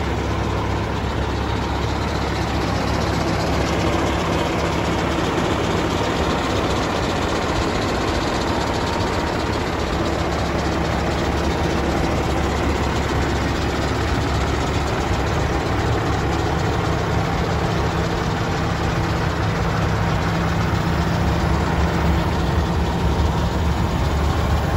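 Caterpillar C15 inline-six diesel in a 2005 Peterbilt 379 idling steadily, warm but not yet at full operating temperature.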